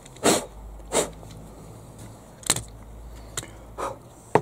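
Hard plastic toy-tractor wheels and chassis parts knocking on a wooden slatted bench as they are handled and set down: about six separate knocks at uneven intervals.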